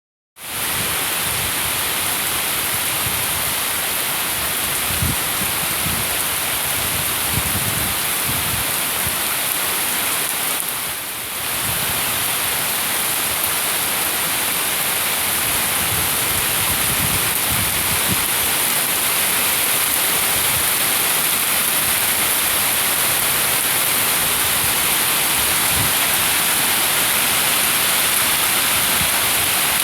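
Water rushing through a yard: a steady, dense hiss that dips briefly about eleven seconds in.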